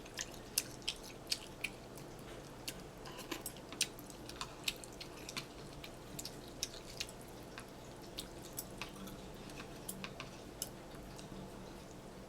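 Close-up eating sounds of someone eating ramen: irregular wet mouth clicks and soft chewing, a few short clicks a second.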